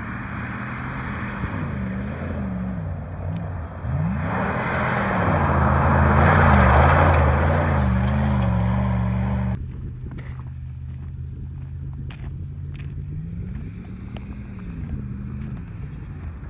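Dodge Durango's engine revving up and down off-road. It is then held at high revs under load for about five seconds with a loud rushing noise, and drops abruptly back to a low idle about ten seconds in. A few light knocks and one short rev follow near the end.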